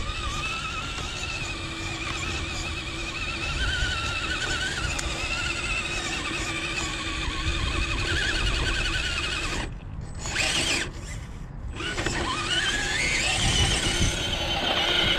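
Element RC Enduro Trailrunner RC crawler's electric motor and gearbox whining under load as it climbs a dirt bank, the pitch wavering with the throttle. Near the end the whine rises as the tyres spin and throw dirt.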